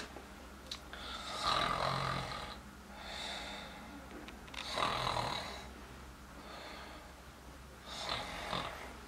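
A sleeper snoring in slow, regular breaths: about five snores in a row, each lasting around a second.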